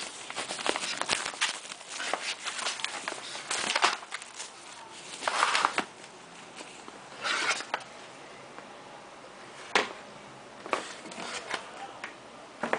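Handling noise of unboxing: packaging rustling and crinkling with scattered clicks and taps. It is busy with crackles for the first few seconds, has two longer rustles in the middle, then only a few sharp clicks.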